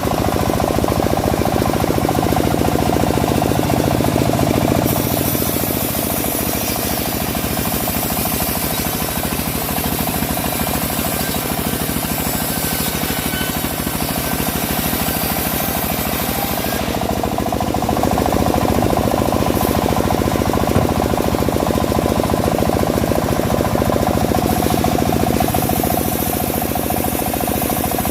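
Engine-driven homemade bandsaw mill running steadily while sawing a teak log, with a fast knocking engine beat under a high hiss that shifts in strength a few times.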